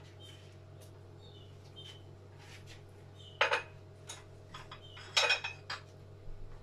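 Kitchenware clinking and clattering: two sharp clinks about three and a half and five seconds in, with lighter taps between them, over a low steady hum.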